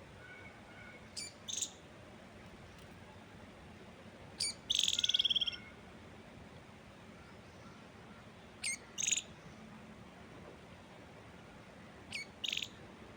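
A songbird calling in short high-pitched phrases about every three and a half seconds, each a quick sharp note followed by a buzzy note; one phrase about five seconds in stretches into a rapid trill lasting about a second. Under it a faint, steady hiss of wind.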